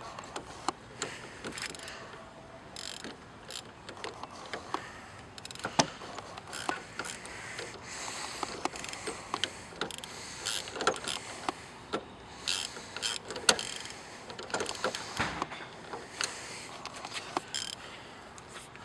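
Socket ratchet clicking in short, irregular runs, with scattered clinks of metal tools, as bolts are driven in on a car starter.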